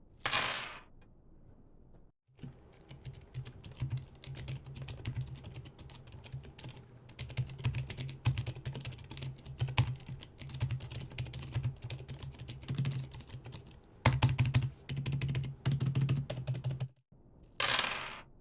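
Fast, continuous typing on a GMK67 mechanical keyboard with silent tactile switches and PBT keycaps: soft, muted keystrokes with a low thud on each bottom-out, running in bursts with brief pauses. A short swish of noise sits at the very start and again near the end.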